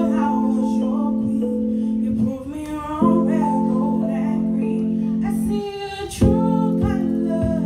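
A woman singing live into a microphone over sustained accompanying chords that change about every three seconds.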